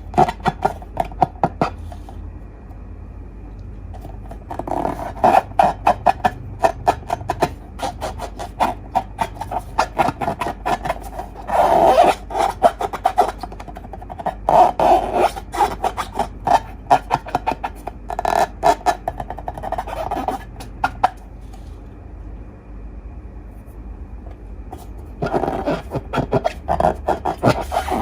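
Slime being worked by hand: bursts of sticky, crackling clicks that come and go with short quiet pauses between them.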